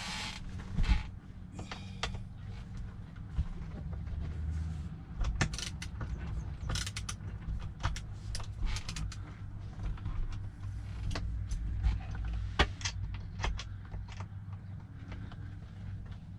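Hand tools and loose metal parts clinking and knocking irregularly as parts are worked loose, over a steady low hum.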